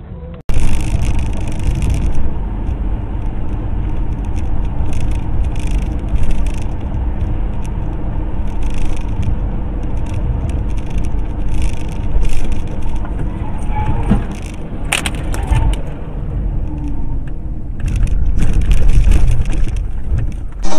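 Inside a moving car: steady low road and engine rumble with light rattling, as picked up by a dashcam, and a sharp click about fifteen seconds in.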